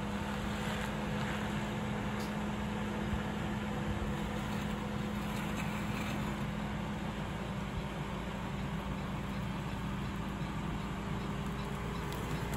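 Suzuki Jimny's 1.5-litre four-cylinder petrol engine running steadily at low revs while the vehicle crawls slowly over a rough dirt bank, a constant low hum with no revving.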